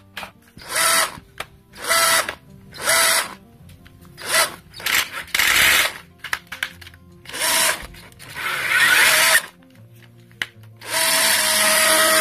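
Bosch PSR 960 9.6-volt cordless drill/driver motor spinning up in short trigger pulls, about ten runs of half a second or so, with a longer run of nearly two seconds near the end. The drill runs, but it makes an odd, not-normal noise that is later traced to the motor.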